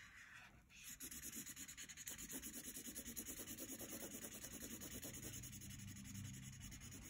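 Crayola felt-tip marker scribbling back and forth on paper while colouring in an area, in quick, even strokes about five or six a second, starting about a second in. Faint.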